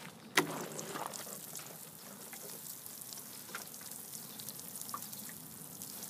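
Water sprinkled in many fine streams onto freshly dug soil and seedling leaves, a steady hiss of small splashes and drips, with a sharp tap about half a second in.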